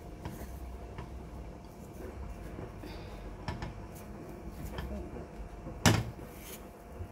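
Cookware handling on a stove: light clicks and scrapes as a silicone spatula turns a tortilla in a nonstick frying pan, then one sharp knock about six seconds in.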